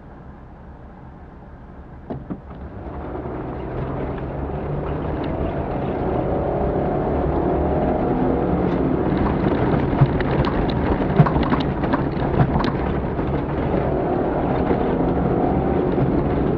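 Off-road rally vehicle's engine heard onboard as it sets off: quiet at first, a couple of knocks about two seconds in, then engine and chassis noise build up over the next few seconds and settle into a steady run, with scattered knocks and rattles throughout.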